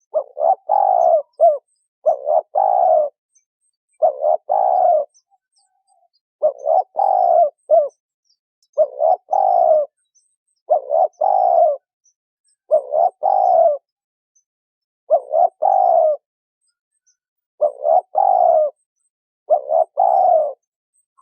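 Spotted dove cooing: each phrase is one or two short notes followed by a longer coo. The phrase repeats about every two seconds, about ten times, with silence between. It is a lure call for drawing in wild doves.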